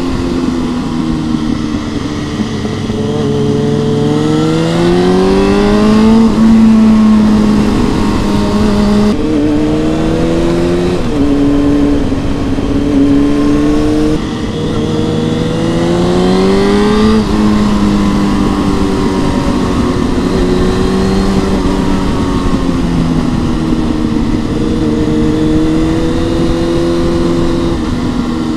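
Honda CB600F Hornet's inline-four engine, breathing through a Mivv X-Cone exhaust, pulling hard under acceleration: the revs climb and drop sharply at upshifts twice, about a third of the way in and just past halfway, then hold steadier with small rises and falls.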